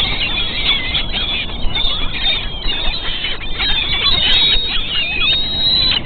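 A flock of gulls calling over one another, a dense stream of short high cries with a longer drawn-out call near the end.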